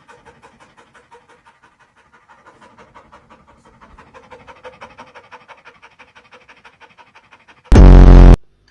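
A dog panting quickly and rhythmically. Near the end, a sudden, extremely loud, clipped blast with a buzzy pitch cuts in for about half a second.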